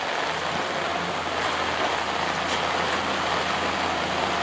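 Heavy rain in a windy storm, a dense, steady hiss of rain and wind, with the low hum of an engine running underneath.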